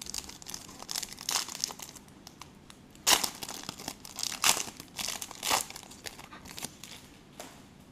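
Foil wrapper of a 2015 Panini Select Soccer trading card pack crinkling and tearing as it is pulled open by hand. It comes as a run of rustles, loudest about three seconds in and again around four and a half and five and a half seconds, then dying away near the end.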